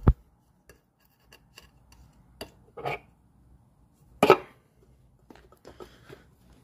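Metal clicks and knocks as the crankcase side cover of a Predator 212 engine is fitted back onto the block. There is a sharp click at the start, a few lighter taps, and the loudest knock just after four seconds in.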